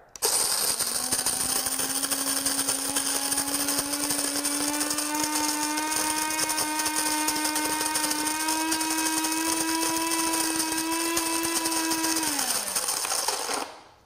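Cuisinart DBM-8 Supreme Grind burr mill grinding coffee beans: a steady electric motor whine over a hiss of grinding, the pitch creeping slowly up. Near the end the motor winds down and stops on its own once the set amount is ground.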